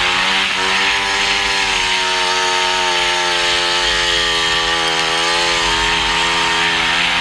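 Speedway motorcycle's single-cylinder methanol engine running hard at high revs on the track, its pitch dipping briefly about half a second in, over a steady hiss of wind.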